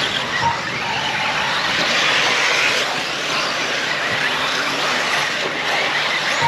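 Several electric brushless RC off-road buggies racing on a dirt track: a high-pitched motor whine mixed with the rush of the cars, swelling and fading as they pass.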